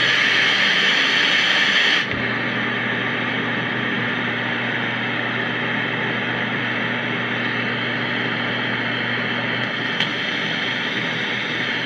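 Steady static hiss. About two seconds in it cuts abruptly to a quieter hiss with a low steady hum under it, and a single click comes near the end.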